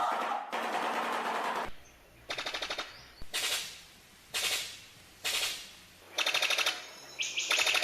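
A bird's harsh rattling calls: a rasping call for the first second and a half, then a string of about six short, rapid-fire rattles spaced about a second apart.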